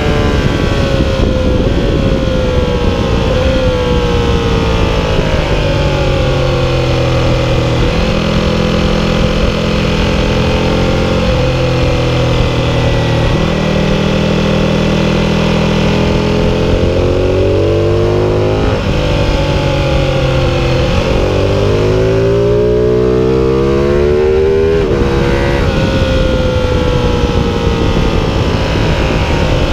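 Ducati 1299 Panigale's Superquadro V-twin heard onboard at speed. Its pitch falls for several seconds as the rider brakes and downshifts, steadies through a long corner, then climbs hard through the gears with a sudden drop at an upshift. Near the end it falls again, all over a steady wind rush.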